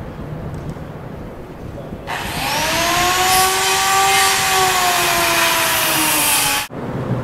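A power saw on a construction site starts about two seconds in and runs with a loud hiss and a whine that rises at first, then slowly drops as it cuts. It stops abruptly near the end.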